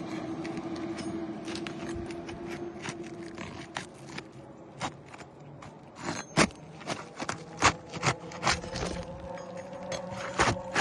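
Irregular scraping and sharp clicks of a roofing tool working under asphalt shingles to break their seal and loosen the nails. A steady hum runs behind it and rises in pitch about halfway through.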